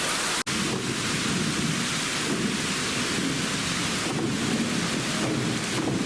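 Waterfall pouring into a gorge, a steady heavy rushing of water, with an instant's dropout about half a second in.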